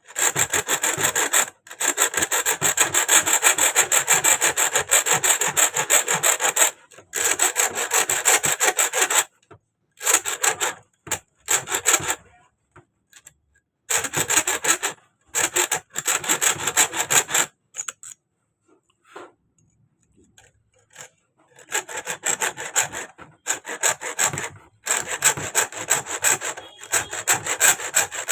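Hacksaw blade sawing through the steel screw of a broken sewing-machine needle clamp in quick, even back-and-forth strokes. The sawing comes in several long runs broken by short pauses.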